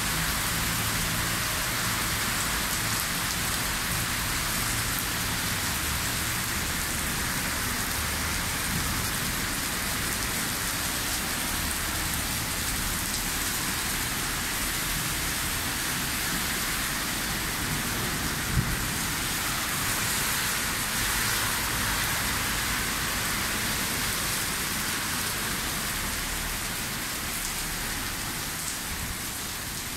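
Heavy rain pouring onto a wet street and pavement, a steady hiss throughout, with one sharp tap about two-thirds of the way through. It fades a little near the end.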